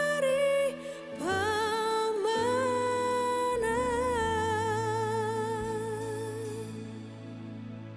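Background music: a high voice sings long held notes with vibrato over sustained chords, fading out near the end.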